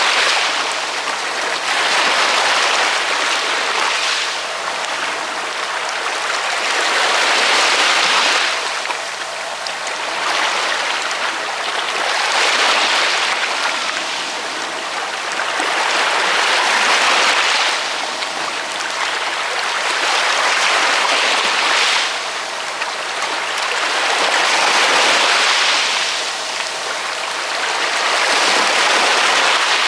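Ocean waves: rushing surf noise that swells and falls away in steady surges, about one every four seconds.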